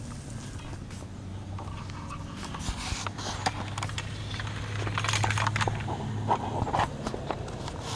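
Scraping and clicking handling noises, louder around the middle of the stretch, over a low steady hum.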